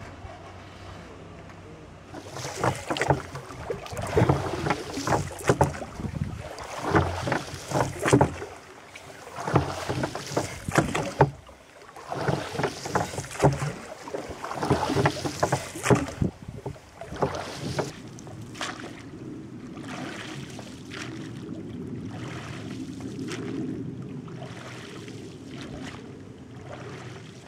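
Wooden rowboat being rowed, heard from aboard: splashes and knocks from the oars come in a stroke every two or three seconds. From about sixteen seconds in they give way to a softer, steady wash of water and wind.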